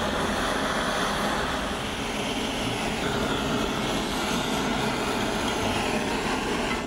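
Gas torch burning steadily with a loud rushing noise as it heats a steel hammer head to red heat for hardening, followed by the red-hot steel being quenched in a jar of oil, with the sound shifting about three seconds in. The noise cuts off abruptly at the end.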